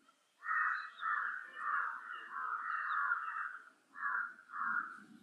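Crow cawing: a quick series of harsh caws, with a short pause before the last two.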